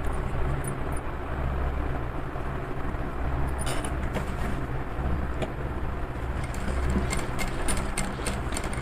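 Industrial sewing machine running with a steady low motor hum while stitching fabric strap pieces one after another in a chain. Light clicks and rustles of the straps being handled come around the middle and again near the end.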